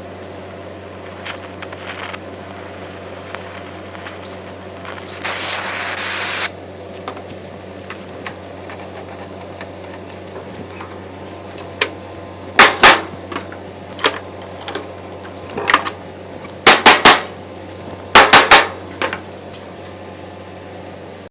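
Chipping hammer knocking slag off a fresh stick weld: sharp metal strikes in short clusters of two to four in the second half. Under it runs a steady low hum, and there is a brief hissing scrape before the strikes.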